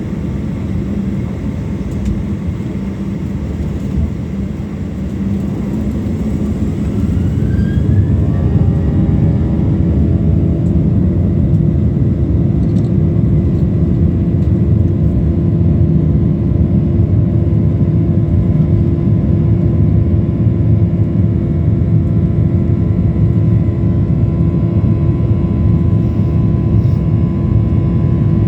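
Boeing 737-800's CFM56 jet engines, heard from inside the cabin, spooling up to takeoff power: the engine whine rises about six to nine seconds in, then holds steady and louder over the rumble of the takeoff roll.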